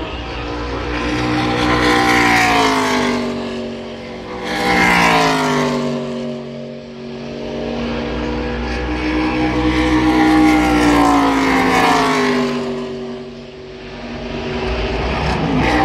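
ARCA Series stock cars' V8 engines at full throttle, several cars passing one after another through the Esses. The engine note rises and falls in pitch as each goes by, loudest about two, five and eleven seconds in.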